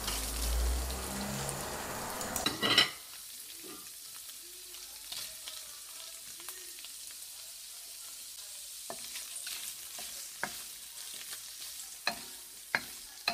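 Paneer cubes dropped into hot ghee in a wok, sizzling loudly for about the first three seconds. The sizzle then settles to a quieter, steady frying hiss, with a few light knocks near the end.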